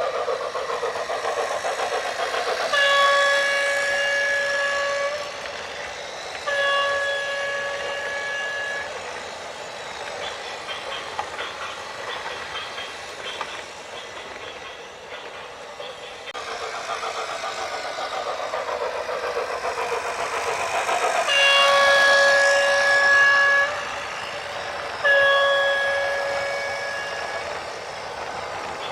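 A loud single-pitched horn sounding two long blasts, each about two seconds, with the same pair of blasts coming again about eighteen seconds later, over a constant rushing rumble of a moving vehicle.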